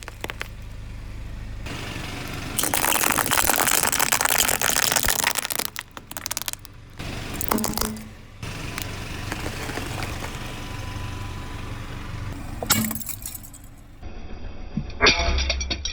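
Things cracking and crunching as a car tyre rolls over and crushes them, in several short cut-together clips, with a long burst of dense crackling early on and separate sharp cracks later.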